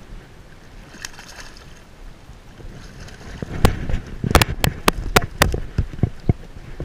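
Wind and water in the background, then from about three and a half seconds in a quick, irregular run of sharp clicks and knocks as a freshly caught sea robin is gripped and unhooked.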